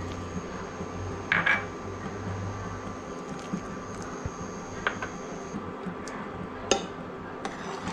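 Dry fruits tipped into a pan of milk, with three short clinks of bowl and cup against the pan over the steady hum of a running induction cooktop.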